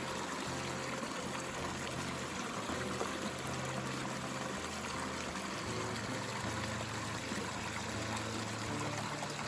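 Stream water running steadily, an even rush, with low held tones underneath that change every second or two.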